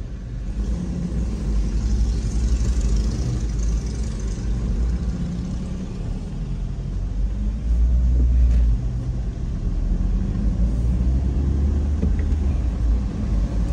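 Car engine and tyre noise heard from inside a moving car: a steady low rumble that grows a little louder about eight seconds in.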